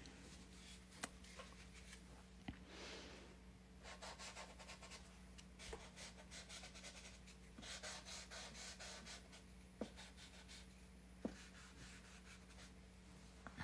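Faint rubbing of a paper towel over wet oil paint on a canvas, wiping paint back out to mark the lightest areas, in two stretches of strokes with a few small ticks. A low steady hum sits underneath.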